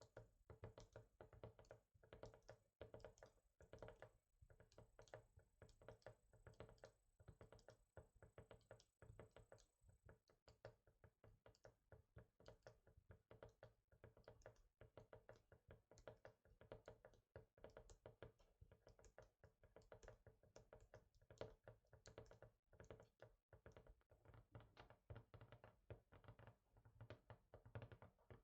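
Quiet fingertip tapping on a hard surface, quick and uneven, several taps a second without pause.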